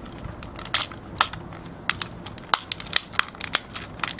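Hard plastic parts of a Hikarian Ukkari transforming toy locomotive clicking and snapping as they are pressed and fitted together by hand, a string of sharp, uneven clicks.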